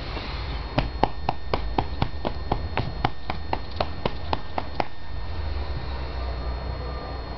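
A quick, even run of about sixteen sharp clicks, about four a second, starting near the first second and stopping about five seconds in.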